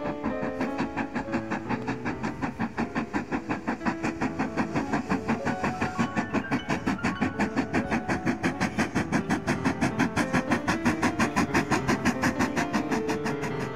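Steam locomotive exhaust chuffing in a steady rhythm of about five beats a second, growing louder a few seconds in, with music underneath.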